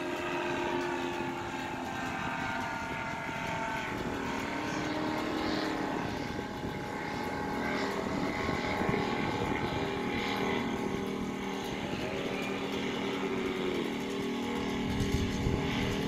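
Paramotor engine and propeller running on the ground, its pitch shifting up and down as the throttle is varied before takeoff.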